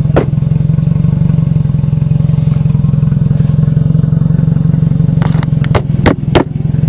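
Eagle Talon's engine idling steadily, with a few sharp knocks and clicks near the end.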